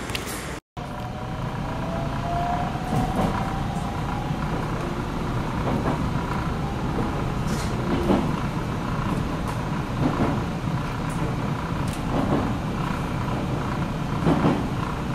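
Inside an electric train pulling away: a steady rumble of the running gear, a motor whine rising slowly in pitch over the first few seconds, and a few short knocks from the wheels.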